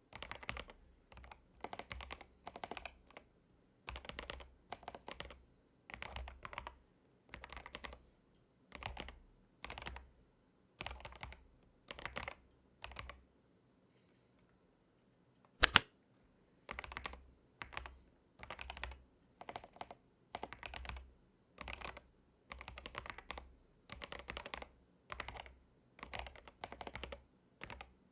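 Fast typing on an Epomaker DynaTab 75X mechanical keyboard: quick runs of key clicks about once a second, one per word. About halfway through the typing stops for a couple of seconds. Then comes a single much louder sharp click, and the typing carries on.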